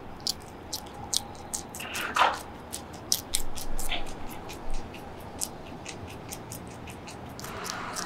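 Guinea pig chewing a crisp green vegetable: a quick run of small, sharp crunches, about three a second. One brief, louder falling sound comes about two seconds in.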